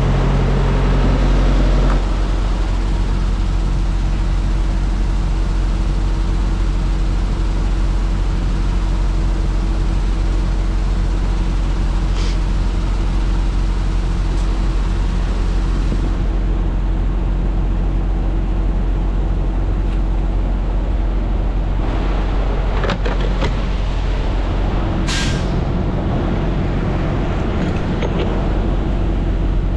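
Semi truck's diesel engine running steadily, with a short sharp hiss about 25 seconds in.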